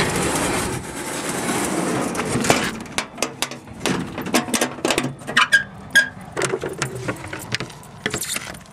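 A slide-out camp kitchen drawer being pushed back into a vehicle's side compartment with a steady sliding rush, then a quick run of clicks, knocks and rattles with a couple of short squeaks as the compartment hatch is handled and latched shut.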